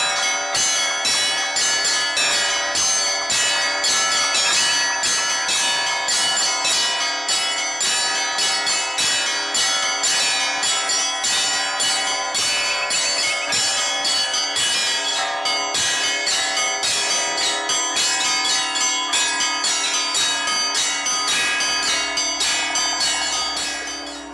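Orthodox church bells rung in a fast peal: several bells of different pitches struck in quick succession, several strikes a second, with the higher bells loudest. The ringing stops right at the end, leaving the bells humming.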